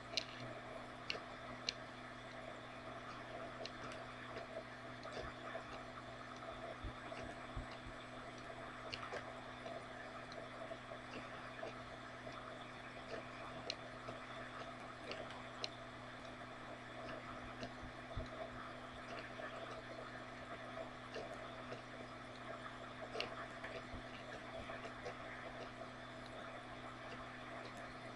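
Steady low background hum of room tone, with a few faint scattered clicks.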